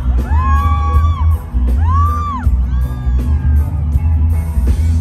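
Live reggae band playing loud through a concert PA, heard from the crowd. A heavy bass line runs under it, and three long high notes swoop up, hold and fall away during the first three and a half seconds.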